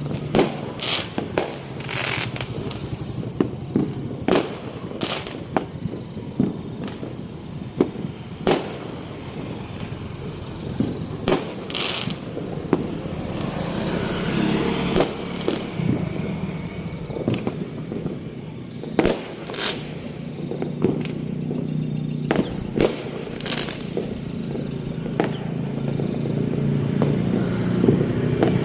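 Fireworks going off: scattered sharp bangs and crackles at irregular intervals, over a steady low rumble that grows louder near the end.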